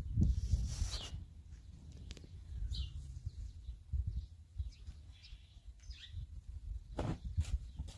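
Birds chirping outdoors, short single calls every second or two, over an uneven low rumble. A few sharp rustles or steps come about seven seconds in.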